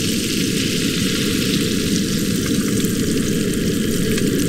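Melting butter and cooking oil sizzling in a frying pan on a portable gas camp stove, a steady hiss with scattered tiny pops, over a steady low rumble.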